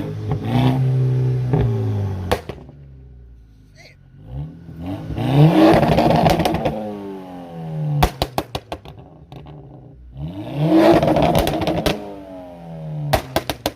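Turbocharged four-cylinder engine of a 2014 Volkswagen Jetta running with an open downpipe, so the exhaust is unrestricted after the turbo. It is revved twice, each rev rising and then falling away, and a quick string of pops follows as the revs drop.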